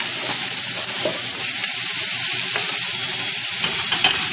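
Thin beef ribeye steaks sizzling steadily on a hot indoor grill, with a few light clicks.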